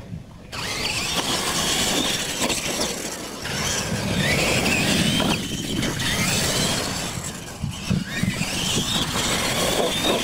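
Two electric R/C monster trucks launching and racing side by side on dirt: a sudden start about half a second in, then the motors' whine rising in pitch twice as they speed up, over the noise of the tyres on the dirt.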